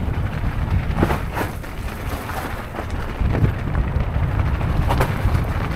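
Wind rumbling on the microphone while a mountain bike rolls over a rough trail, with a few knocks and rattles from the bike and its tyres hitting stones.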